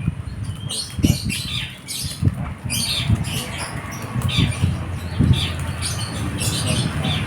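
Plastic packaging rustling and crinkling in short irregular bursts as it is handled, with soft knocks.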